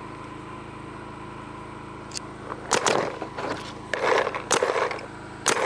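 Single shots from a Planet Eclipse Geo electropneumatic paintball marker being fired through a chronograph: several sharp cracks from about two and a half seconds in, over a steady low hum.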